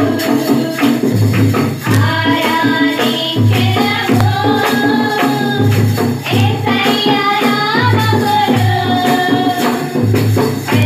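A group of women singing a Christian worship song through microphones and a loudspeaker, with tambourine and a steady low drum beat.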